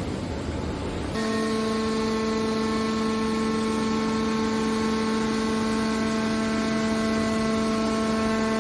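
Hydraulic power unit of an aluminium can scrap baler: a steady whining hum starts abruptly about a second in and holds at an even pitch.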